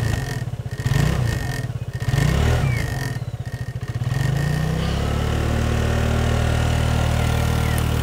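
Vespa scooter's engine running and revving up and down a few times, then holding a steady pitch from about halfway through as the scooter rides off.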